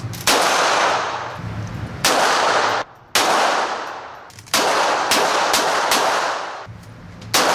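Pistol shots fired one at a time, about five loud ones one to three seconds apart with a few fainter cracks between, each ringing on in the echo of an indoor shooting range.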